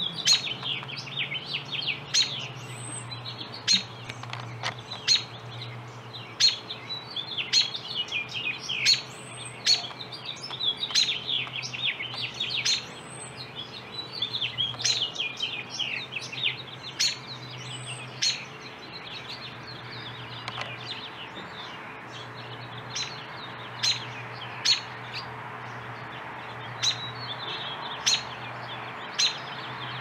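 Songbirds chirping: a busy run of quick, sharp chirps and short call notes that thins out after about the middle, over a steady low hum.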